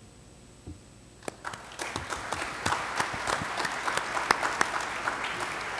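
Audience applauding. After a quiet start, a few scattered claps come in about a second in and build into steady applause by about two seconds in.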